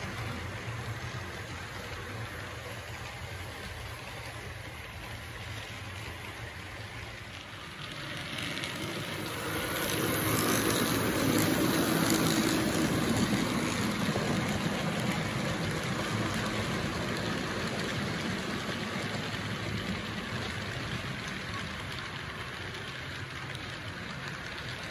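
HO scale model freight train running on the layout track: the Athearn blue box Dash 9 locomotives' motors and the cars' wheels on the rails make a steady running noise. It grows louder about ten seconds in as the locomotives pass close by, then eases off as the freight cars roll past.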